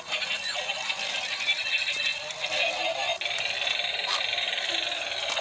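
Battery-operated toy tank running: its small speaker plays tinny electronic music and sound effects over the fast rattle of its plastic gear motor as it drives and tips up on the floor.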